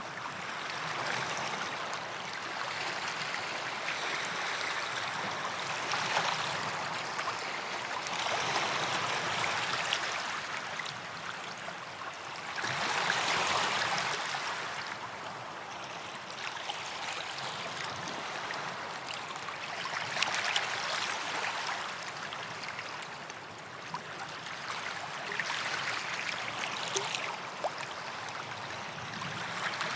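Small waves washing onto a sandy beach: a steady hiss of water that swells every few seconds as each wave comes in.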